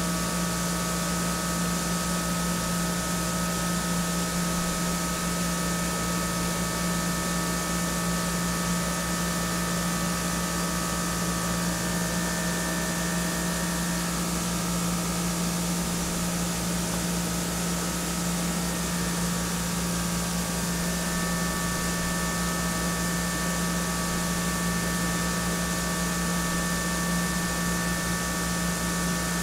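CNC vertical machining center chamfer milling Ti-6Al-4V titanium with a half-inch Duo-Lock chamfer mill at 3820 rpm under flood coolant: a steady hiss of coolant spray over a low hum and a few steady higher tones from the spindle and cut. The higher tones fade for several seconds midway and then return.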